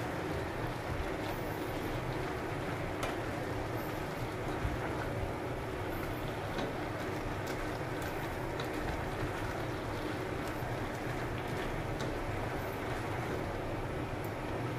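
Steady rushing noise of a gas stove burner under a simmering pot of taro leaves in coconut milk. A few faint light clicks come in as a spoon stirs the pot.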